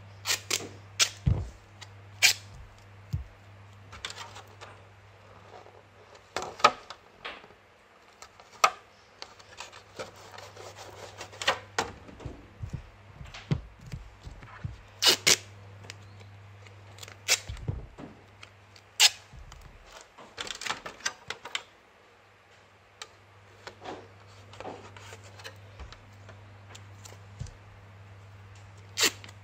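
A thin clear plastic RC car body shell being handled, flexed and set down on a cutting mat while adhesive patches are stuck onto it: irregular sharp clicks, taps and crinkles of the plastic. A steady low hum runs underneath.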